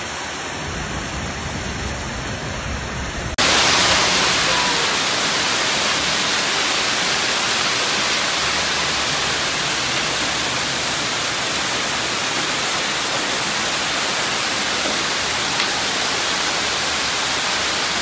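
Steady roar of a heavy hail and rain downpour. A little over three seconds in, it cuts abruptly to a louder, brighter hiss.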